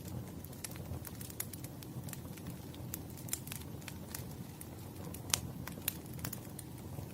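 Firewood burning: a low steady rumble with irregular crackles and pops, the sharpest pop about five seconds in.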